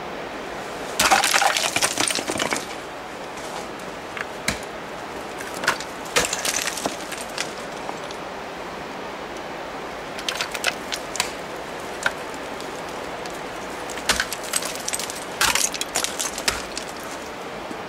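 Crampon front points kicking into hard ice: seven or so sharp, crunching kicks a second to a few seconds apart, each with a brittle clatter of shattering ice chips, over a steady hiss.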